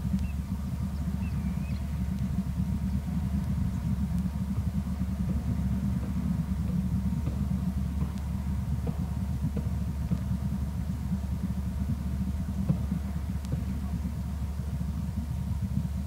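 Steady low rumble picked up by an outdoor camera microphone, with a faint high chirp about a second and a half in.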